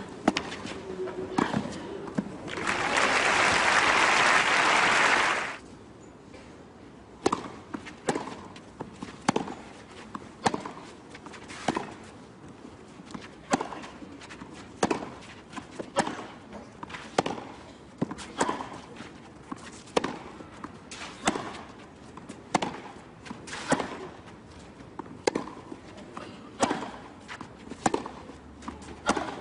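Tennis ball strikes on a clay court, then crowd applause for about three seconds. From about seven seconds in comes a long baseline rally: crisp racket hits alternating with softer ball bounces on the clay, about one impact every half second to a second.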